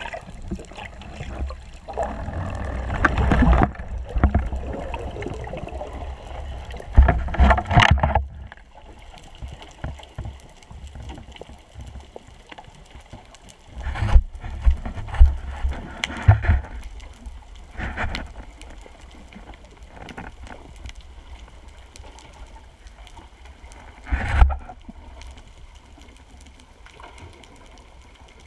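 Water sloshing and bubbling around an action camera carried by a freediver: loud noisy surges about two and seven seconds in, then quieter, muffled underwater noise broken by a few short bursts.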